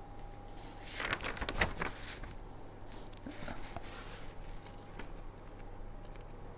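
Indoor room tone: a steady low hum with a faint steady high tone over it, and a short cluster of clicks and rustles about a second in.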